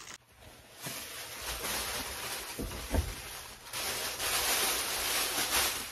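Sheet of plastic bubble wrap rustling and crinkling as it is handled, with a dull thump about three seconds in.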